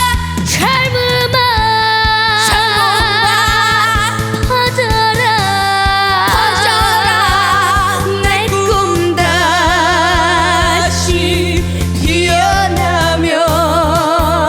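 Trot song performed live: female voices singing a melody with strong vibrato over a band backing with a steady beat.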